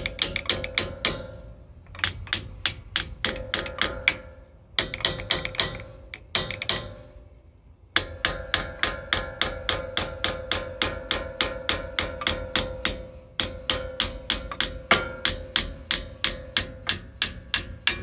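Hammer blows on a rust-seized front brake pad in its caliper bracket, struck in quick runs of about four blows a second with short pauses, each blow ringing metallically: the pad is being knocked loose from the rust.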